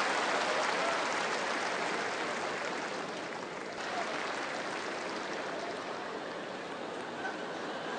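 Tennis stadium crowd applauding, a dense steady patter that slowly dies down.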